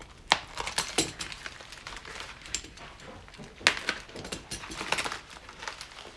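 A small taped plastic packet being cut open and handled: crinkling and rustling of the wrapping with scattered sharp clicks, the loudest about a third of a second and about three and a half seconds in.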